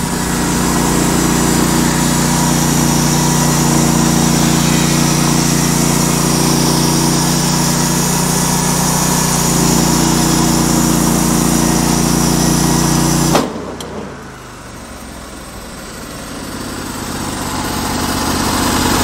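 Portable band sawmill's small petrol engine running under load as the band blade cuts through a poplar log. About thirteen seconds in there is a sharp crack and the cutting noise stops abruptly as the blade comes off, knocked off by a drive belt that popped off; the engine keeps running, its sound slowly rising again.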